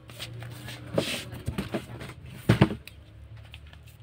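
A kitten eating dry kibble, with small irregular crunching clicks. Two louder bumps come about a second in and about two and a half seconds in, over a low steady hum.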